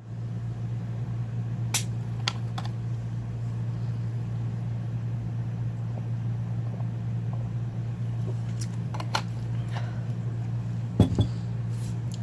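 Steady low hum of room background noise, with a few faint clicks and taps scattered through it and a pair of slightly louder knocks about eleven seconds in.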